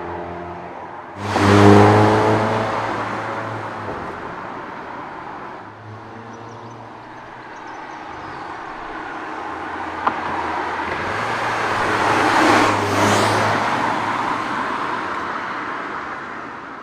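Hyundai Kona N's 2.0-litre turbocharged four-cylinder engine and exhaust as the car drives by: a sudden loud pass about a second in that fades away, then a second pass that builds and falls off near the end.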